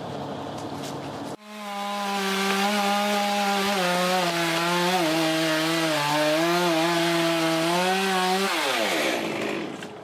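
Small two-stroke chainsaw running at high revs from about a second and a half in, the pitch dipping slightly now and then as it cuts into a limb. Near the end the throttle is let off and the revs fall away.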